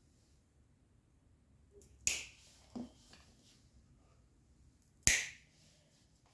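Two sharp clicks about three seconds apart, with a softer tap shortly after the first.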